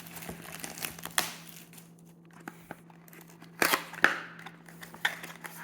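Foil card pack and cards being handled and torn open: scattered crinkles and crackles, with two louder crackles a little past halfway.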